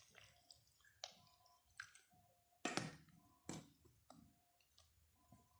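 A spoon tapping and clinking against a glass, quietly and at irregular intervals, with a brief ring after several taps, as salt is stirred into a glass of water.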